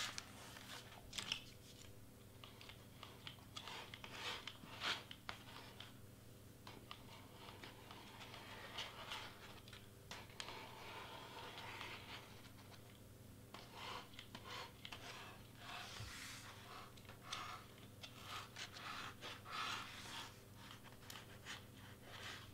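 Faint rustling and crinkling of cardstock being lifted, glued and pressed down by hand, with scattered light clicks and taps.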